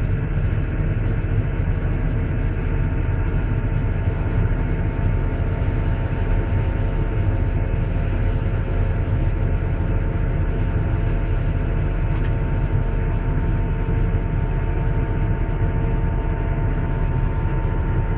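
Volvo EC480D excavator's diesel engine running steadily, heard from inside the cab: a deep, even rumble with a steady whine above it as the upper structure swings round.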